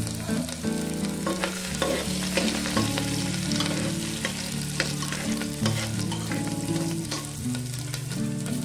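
Metal spatula stirring and scraping in an aluminium pressure cooker while cumin, garlic and ginger fry in hot oil: a steady sizzle with many scattered clicks and scrapes of the spatula against the pot.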